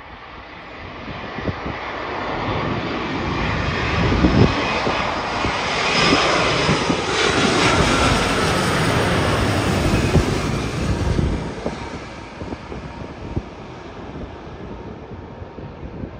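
Boeing 787-9 Dreamliner with its General Electric GEnx-1B turbofans passing low overhead on approach with the gear down: the jet noise builds, peaks in the middle as it goes over with an engine whine dropping in pitch, then fades as it moves away.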